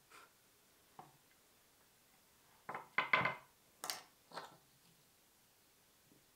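An axe set down on a wooden tabletop: a few light taps, then a cluster of knocks and clatter about three seconds in, followed by two smaller knocks.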